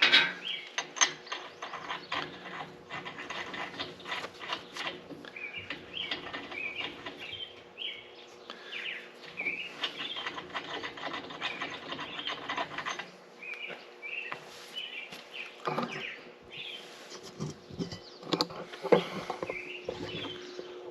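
Hand tools on steel: sharp taps and knocks, then a wrench ratcheting with scattered clicks, as a nut welded onto a broken stud is worked to turn the stud out of a John Deere discbine cutter bar. Birds chirp throughout.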